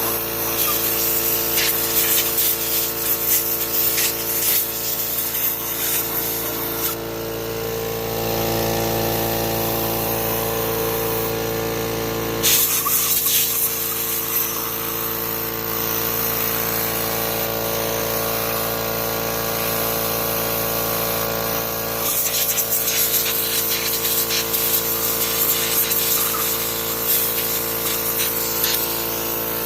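A blower motor running steadily, with a hiss of air, as it blows oil and ether out of the weed trimmer's cylinder; the sound shifts a few times, and there are scattered clicks and rattles.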